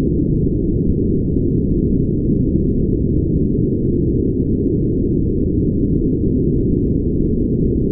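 Brown noise: a steady, deep rushing sound with all its weight in the low end and no high hiss, unchanging throughout.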